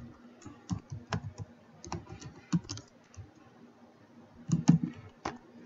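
Typing on a computer keyboard: irregular keystrokes, with a quick run of louder keys about four and a half seconds in, over a faint steady hum.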